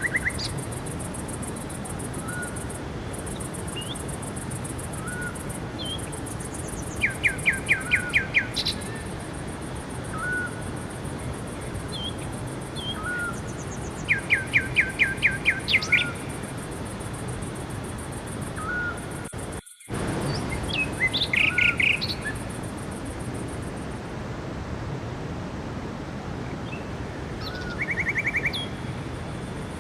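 Songbirds singing: a trill of rapid repeated notes comes every six or seven seconds, with short single chirps about every two seconds between, over a steady background hiss. A high steady buzz fades out in the last quarter, and the sound drops out for a moment about two-thirds of the way through.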